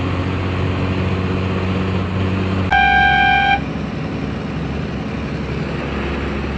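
Bus engine running steadily at highway speed, heard from inside the cabin. About three seconds in, a horn sounds once for just under a second, loud and clear above the engine, while passing a tanker truck.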